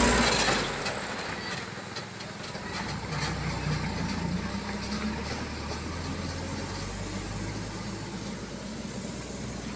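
Diesel engine of a loaded Mitsubishi Canter truck pulling away. It is loud as the truck goes past close by, then drops within the first second to a steady low running sound as the truck drives off.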